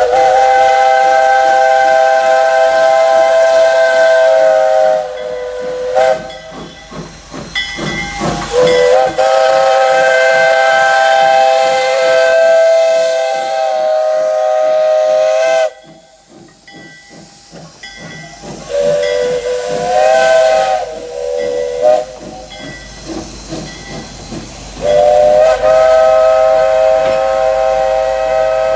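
Steam locomotive No. 85's whistle sounding a chord of several notes at once in a long, long, short, long pattern, the grade crossing signal, with brief toots between. Steam hisses under it as the train passes.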